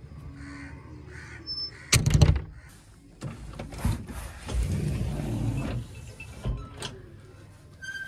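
Cab door of a JCB 3DX backhoe loader swung shut and latched with a loud clunk about two seconds in, followed by rustling and a couple of knocks in the cab.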